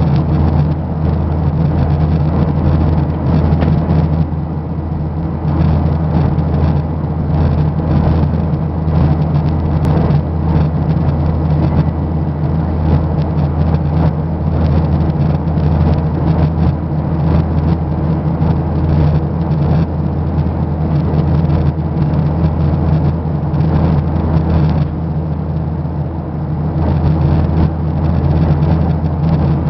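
Steady drone of an airliner cabin in flight: engine hum and rushing airflow, with a deep, even hum underneath.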